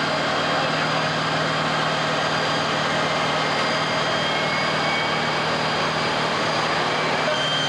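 Fire engines running steadily at the scene, their engines driving the pumps: a loud, even drone with a constant low hum.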